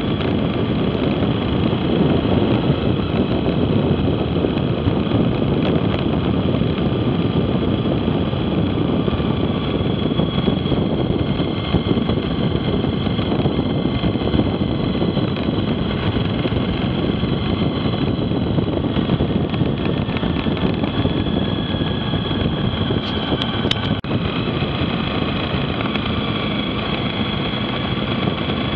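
Motorcycle running at a steady cruising speed of about 60 km/h, its engine mixed with wind and road noise on the onboard camera. A few short clicks come about 23 seconds in.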